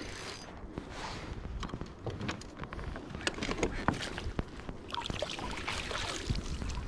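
Water splashing and knocking as a perch is drawn alongside a kayak and scooped out in a landing net, with water pouring back off the lifted net in a hissing stream about five seconds in.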